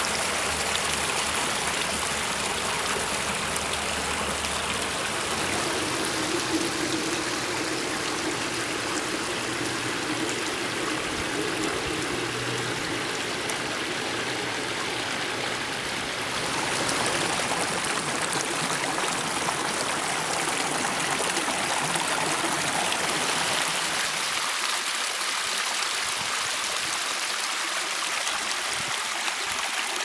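Water splashing and trickling steadily down a small stacked-flagstone pondless waterfall; its sound shifts a little about halfway through and again later.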